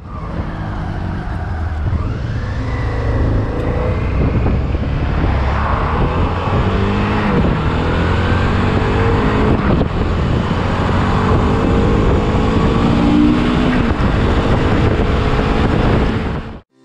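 Motorcycle running at motorway speed, its engine droning steadily under wind rushing over the microphone, with engine tones that glide up and down as traffic is passed. The sound cuts off suddenly near the end.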